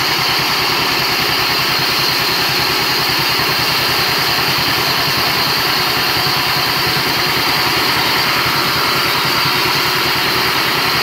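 Small stationary engine of a band sawmill running steadily at idle, with no log being cut.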